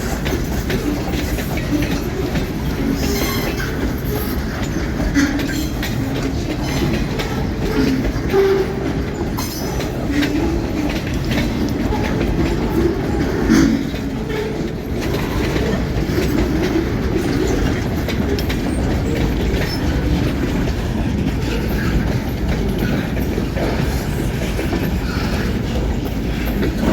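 A freight train's cars rolling past, a steady rumble with the wheels clattering rhythmically on the rails.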